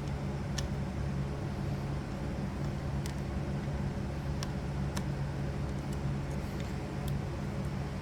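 Steady low background hum with a handful of sharp, light clicks of small metal parts being handled during score reel reassembly.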